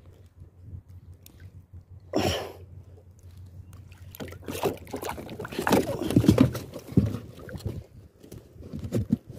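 Water sloshing and splashing against the side of a small fishing boat, with irregular knocks and rustles from handling at the hull, busier in the second half. A short burst of noise about two seconds in is the loudest single moment.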